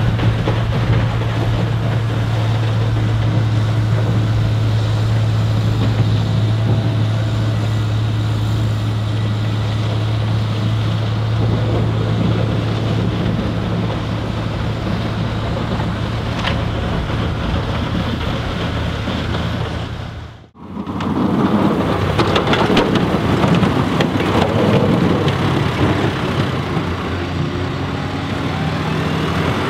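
Volvo L70F wheel loader with a front-mounted Øveraasen snowblower running steadily while blowing snow into a truck: a steady low hum under a rushing noise. About two-thirds of the way in, the sound cuts abruptly to a John Deere 6125R tractor with a V-plow running, rougher and noisier.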